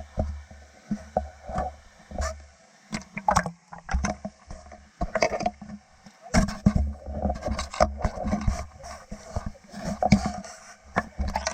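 Water splashing and sloshing close to the camera, with irregular knocks and patches of deep rumble from the camera being handled in the water.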